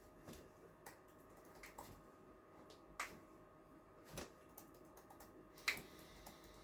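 Several faint, sharp, separate clicks and taps from handling during a hands-on chiropractic treatment, the loudest near the end and another about three seconds in.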